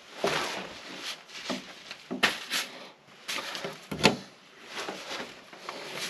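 Rustling and scraping of a person crawling across a crawl space floor, with several knocks, the sharpest a little after two seconds and at about four seconds in.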